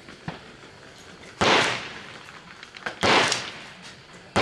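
Gunshots at a shooting range: two sharp shots about a second and a half apart, each with a short echo, and a third right at the end.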